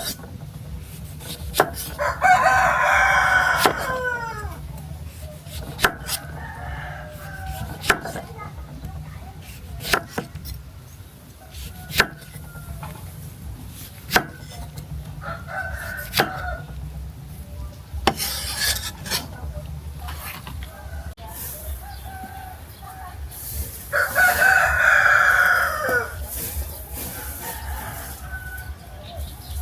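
A rooster crowing twice, one long crow near the start and another about twenty seconds later, each ending in a falling tail. Sharp single knocks sound about every two seconds throughout.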